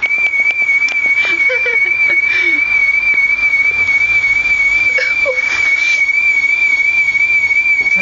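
Car alarm siren sounding continuously: one high, piercing tone with a fast, even warble.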